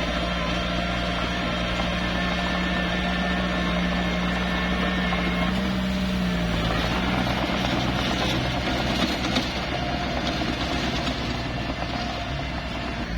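Small bulldozer's diesel engine running steadily, its pitch rising slightly about halfway through, then rougher working noise in the second half with a single sharp knock about two-thirds in.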